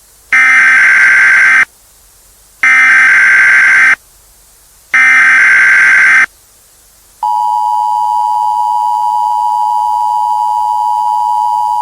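Emergency Alert System tones: three loud bursts of SAME header data, each about a second and a quarter long with about a second's gap between them, then the steady two-tone EAS attention signal coming in about seven seconds in.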